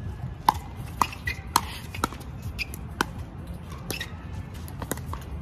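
Pickleball doubles rally: composite paddles hitting the hollow plastic ball in an irregular run of sharp pocks, one or two a second.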